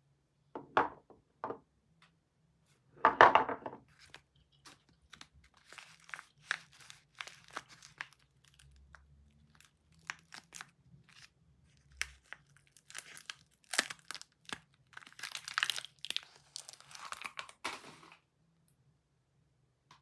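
A bar of soap's wrapper being torn open and crinkled by hand as the bar is unwrapped, in uneven bursts of crackling with short pauses, the loudest about three seconds in.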